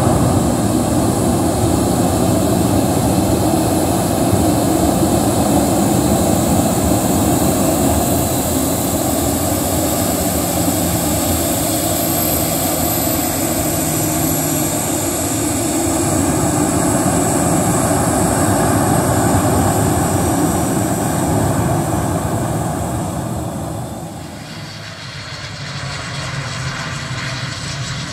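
CFM56 jet engines of a Boeing 737 business jet taxiing close by: a loud steady rush with a high whine that slowly drops in pitch. About 24 seconds in it cuts to a quieter, more distant turboprop airliner's engines.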